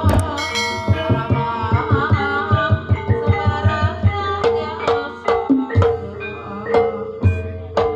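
Live Javanese jaranan music: kendang hand drums beating quick, dense strokes under metallic gamelan tones, a steady held note and a wavering melody line.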